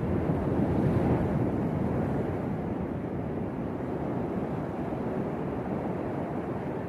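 Sea waves surging and breaking in a continuous rush, swelling to a peak about a second in and then settling into a steady wash, with wind rumbling on the microphone.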